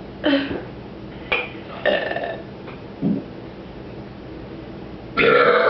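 A string of short burps, about five, one after another, the loudest near the end.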